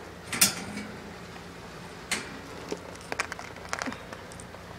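Handling noises as a plate of cucumber slices is put into a wire guinea pig cage: a few sharp clicks and knocks, the loudest about half a second in and a small cluster near the end.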